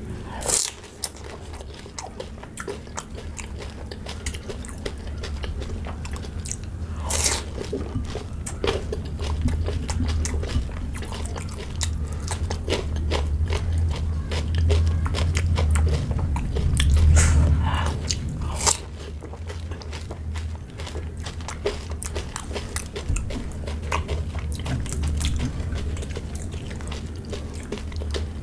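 Close-miked crunching and chewing of pani puri: crisp hollow puri shells filled with spicy water crack between the teeth, and wet chewing follows. The sharpest crunches come about half a second in, around seven seconds in and near nineteen seconds.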